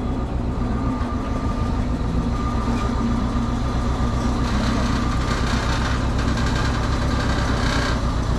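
Engine of heavy lifting equipment running steadily at low speed, a deep, even hum with no break.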